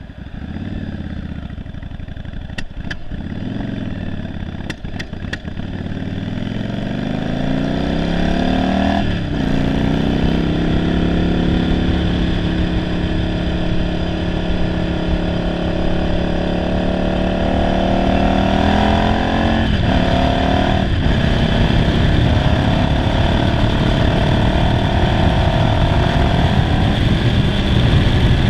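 1991 Yamaha Virago 750's air-cooled V-twin, converted to a single carburettor, pulling away and accelerating through the gears. The pitch climbs, drops at a shift about nine seconds in, climbs slowly again, and dips again around twenty seconds in. Wind rushes over the microphone as speed builds, and the owner describes the bike as running poorly.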